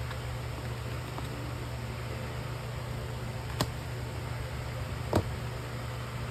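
Steady low hum with a noise bed, broken by two short sharp clicks about three and a half and five seconds in, the second louder.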